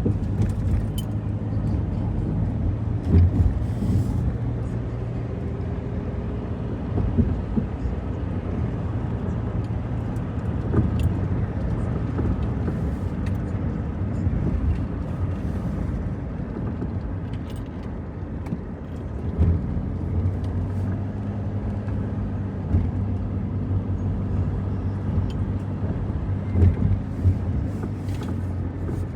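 Car driving: steady engine and road hum, with occasional small clicks and knocks.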